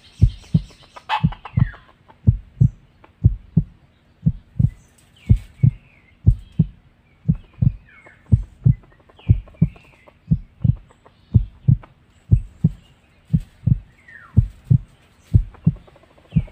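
Heartbeat sound effect: a steady deep double thump, about one pair a second. Brief bird calls sound faintly over it.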